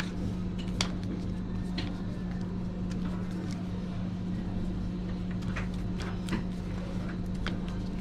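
A steady low machine hum with scattered light clicks and knocks.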